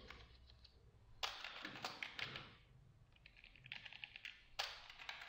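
Typing on a computer keyboard: faint quick key clicks in three short runs with pauses between.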